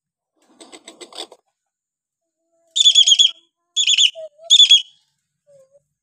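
Hill myna giving a short run of soft clicking notes, then three loud, high-pitched calls in quick succession.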